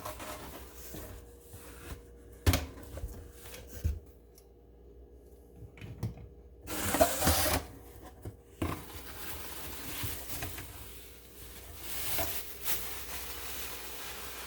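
Unboxing handling noises: a few sharp knocks, then, about seven seconds in, a rustle of packaging lasting under two seconds, followed by softer handling sounds.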